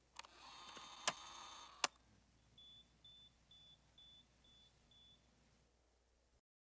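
Faint CD player mechanism loading a disc: a short whir with clicks, the loudest click just under two seconds in, followed by six short high beeps at about two a second.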